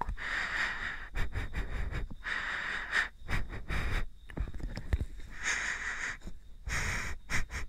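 Breathy whispering and breaths close to a dummy-head binaural microphone, coming in short hissy phrases with pauses, mixed with light clicks and rubs of the dummy head's ears being touched.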